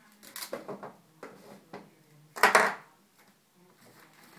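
Handling noises as metal shisha bottle-attachment parts are taken out of a padded zippered case: a cluster of small clicks and rustles in the first second, a few lighter ticks after, and one louder, short handling noise about two and a half seconds in.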